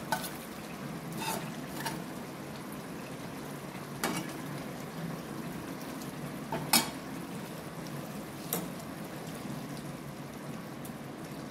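Steel serving spoon clinking and scraping against a steel kadai and a steel plate as cooked poha (flattened rice) is scooped out, about six spaced knocks, the loudest a double knock about seven seconds in. A steady background noise runs under it.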